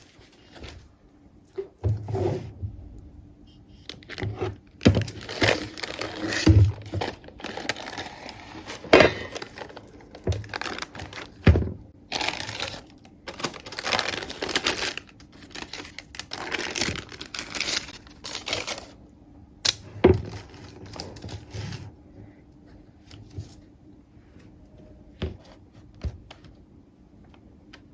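Crinkling and rustling of something being handled, with scattered sharp knocks and clicks; the activity thins out and goes quieter in the last few seconds.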